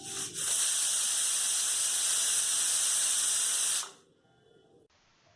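Pressure cooker whistle: steam jets out under the weight with a loud, steady hiss after a few sputtering starts, lasting about three and a half seconds before cutting off suddenly. It is one of the five or six whistles that cook the chicken soup under pressure.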